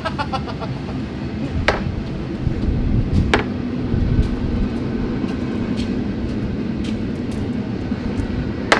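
A few sharp metallic clacks of steel objects snapping against the MRI magnet, over a steady low rumble.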